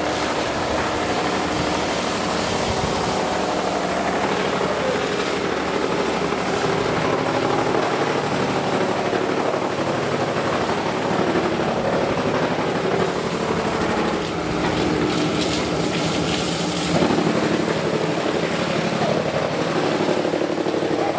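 Steady running machinery, a constant mechanical drone with a few held tones, little change over the whole stretch.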